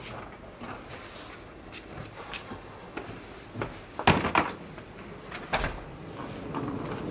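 A series of short knocks and clunks, like things being handled, with the loudest about four seconds in and another a second and a half later.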